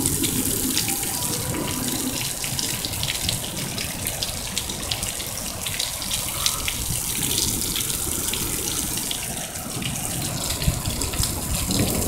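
Heavy rain pouring down: a steady rushing hiss with many spattering drops, over a constant low roar that sounds like a jet plane.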